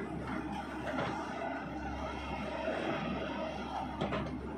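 XCMG XE75DA mini excavator's diesel engine running steadily while the machine digs.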